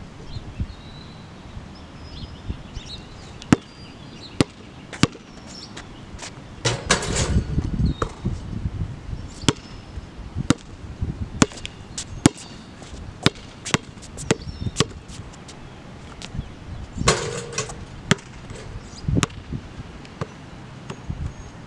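Basketball bouncing on a hard outdoor court: a series of sharp single thuds at uneven spacing, with two longer, louder bursts of noise about seven seconds in and again around seventeen seconds. Birds chirp faintly in the background.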